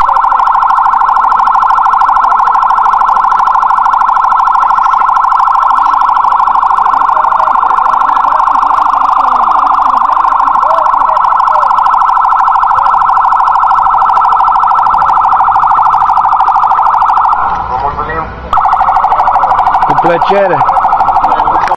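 Siren on a course car with a roof light bar, a loud, close, steady fast-pulsing tone. It breaks off for about a second near the end, then starts again.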